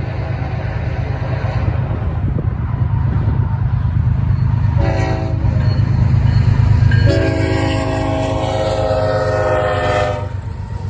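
BNSF diesel freight locomotive rumbling as it approaches and sounding its multi-note air horn: a faint blast at the start, a short blast about five seconds in, then a louder long blast of about three seconds that cuts off suddenly near the end.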